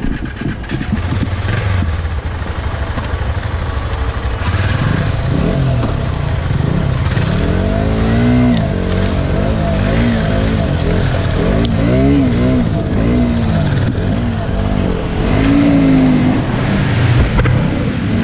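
Motorcycle engines running, with the revs going up and down again and again from about seven seconds in.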